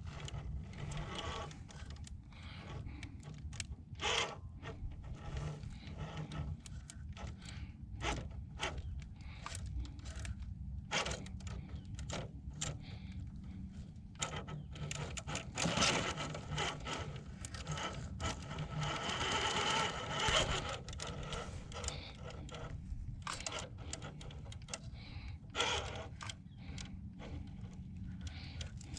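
Traxxas TRX-4 RC crawler crawling over rock: the low hum of its brushed motor and drivetrain at low speed, with many small clicks and knocks of the tyres and chassis on stone. There are louder scraping stretches about halfway through and again a few seconds later.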